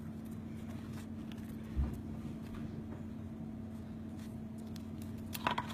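Scissors snipping through thin cork board: a few faint, short cuts over a steady low hum, with one soft thump about two seconds in.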